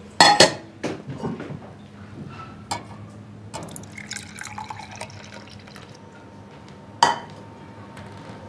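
Milk poured from a small stainless steel saucepan into a glass tumbler, the stream's pitch shifting as the glass fills. A metal clank as the pan is picked up just after the start, and a sharp knock about seven seconds in.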